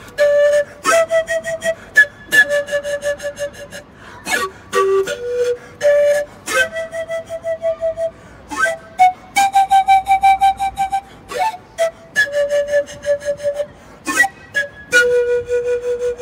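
Pan flute playing a slow melody of held notes, each phrase opening with a sharp, breathy attack.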